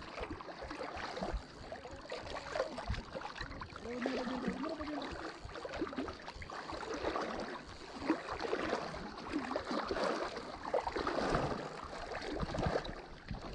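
Shallow sea water sloshing and lapping irregularly around a wading angler.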